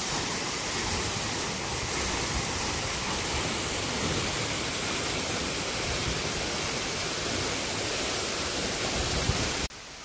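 Waterfall rushing close by: a steady, even roar of falling water with no rhythm or pitch. It cuts off suddenly near the end.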